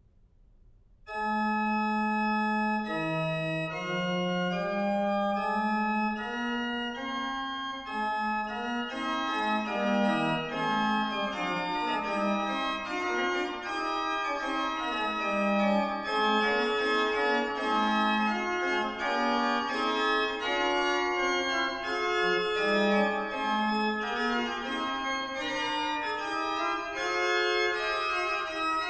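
Sampled Arp Schnitger pipe organ, played through Hauptwerk software, starting a Baroque chorale prelude about a second in: sustained notes in two or three interweaving lines on the manuals, the pedal silent.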